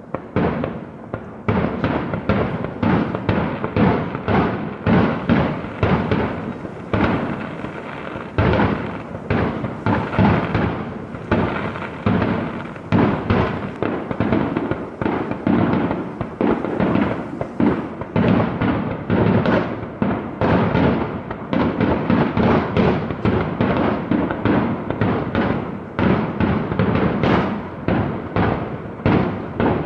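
Fireworks going off in a dense barrage, several sharp bangs a second with no pause.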